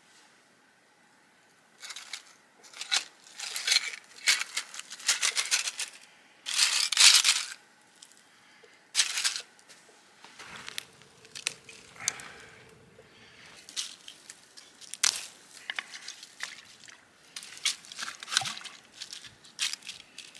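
Shemagh scarf rustling and crumpling as it is gathered and twisted around a load of broken ice, with crunching from the ice inside, in irregular bursts that start about two seconds in and are loudest about seven seconds in.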